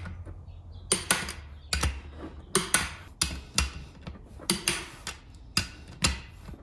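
Click-type torque wrench clicking off as each beadlock ring bolt reaches its set torque of 32 ft-lb: a string of sharp, irregular metallic clicks, about one or two a second.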